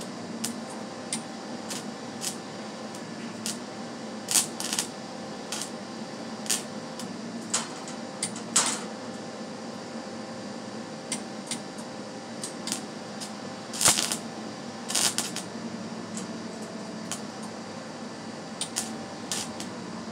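Irregular sharp clicks and taps of a welding gun and steel being handled between welds, over a steady low hum.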